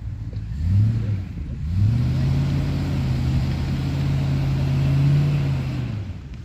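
Range Rover Classic's 3.9-litre V8 engine revving while the vehicle crawls over soft off-road ground: a short rev about a second in, then a longer rev that holds steady for about four seconds and eases off near the end.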